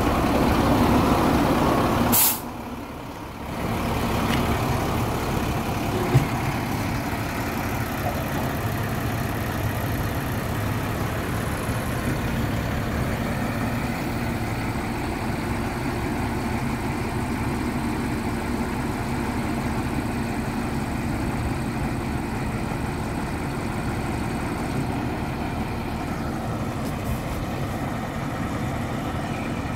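Drill rig truck's diesel engine running steadily, powering the hydraulics as the auger mast is raised. There is a sharp click about two seconds in, then a short dip before the steady running returns.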